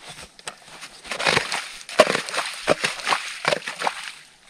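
Small snow shovel crunching and scraping through snow and slushy ice chips around a freshly augered ice-fishing hole, in a quick irregular run of strokes.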